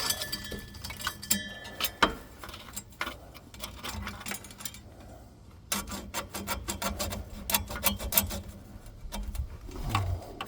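Hand-tool work on a van's rear shock absorber: a run of quick, irregular metallic clicks and scrapes, easing off briefly about four to five seconds in, then picking up again.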